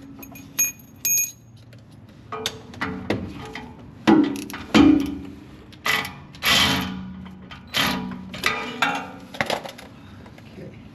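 Metal parts clinking and clanking as the starter's mounting shims and bolts are worked loose: two short ringing clinks in the first second or so, then a run of irregular knocks and clanks.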